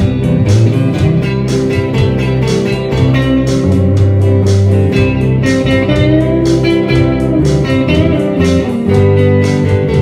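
Instrumental guitar passage of a rock song, a lead guitar over bass with a steady drum beat.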